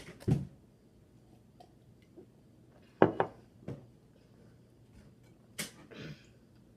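A few short knocks and handling noises from a plastic cup and food being handled at a table. The loudest knock comes about three seconds in, with smaller ones just after the start and near the end.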